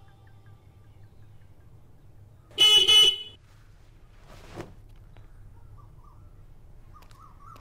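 Motorcycle horn honked once, a loud steady blare lasting well under a second, a few seconds in.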